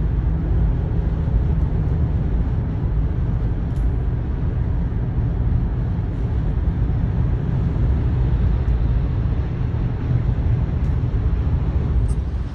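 Steady low rumble of road and wind noise inside a car moving at highway speed.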